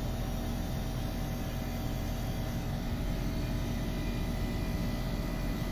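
Split air conditioner's outdoor unit running steadily with its newly replaced R410A compressor and condenser fan, an even hum with a few constant tones, while the system is being charged with refrigerant.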